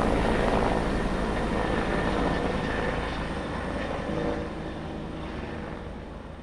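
A steady rushing noise with a low hum underneath, fading out over the last few seconds.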